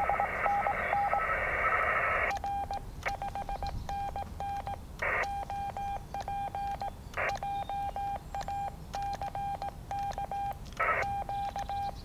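Morse code on a portable HF transceiver: a single steady beep keyed in dits and dahs. For the first two seconds it comes through band hiss. Then it is clean, with short bursts of receiver hiss in a few gaps, as the station sends a signal report, operator name and location ('R 5NN OP JACK QTH Moscow').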